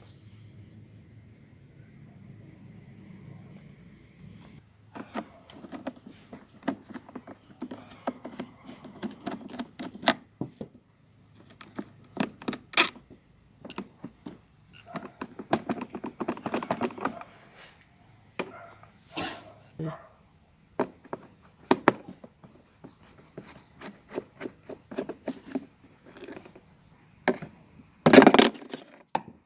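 Hand work on an old rusty bicycle: irregular metal clicks and knocks with stretches of scraping, and a loud short clatter near the end.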